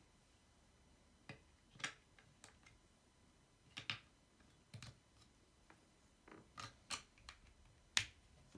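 Irregular small plastic clicks and taps from batteries being fitted into the battery compartment in the hand grip of a Grundig VCC 9773 vacuum cleaner. The sharpest click comes near the end.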